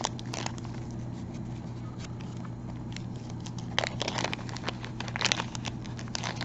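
Small clear plastic zip-top jewelry bag crinkling and crackling as fingers work it open, with a run of louder crackles about four to five and a half seconds in.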